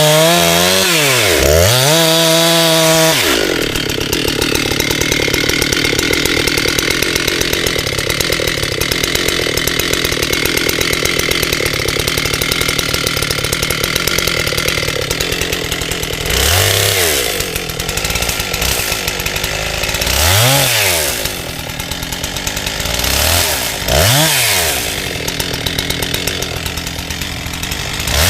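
Husqvarna 385XP two-stroke chainsaw with a 24-inch bar cutting silver maple. The engine speed dips and climbs back at the start, then holds steady under load through a long cut of about twelve seconds. After that it rises and falls briefly several times between cuts.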